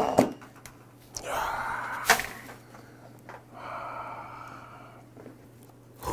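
Styrofoam takeout container lid being pulled off: a rubbing scrape that ends in a sharp snap about two seconds in. Then a long breath about four seconds in.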